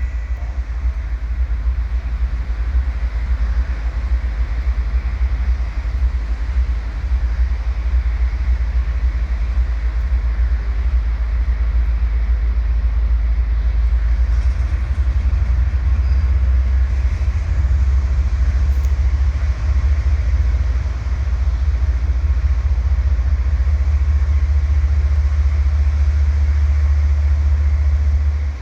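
Departing passenger train hauled by two TE33A diesel locomotives: a steady, heavy low rumble of the diesels and rolling cars as the train moves off.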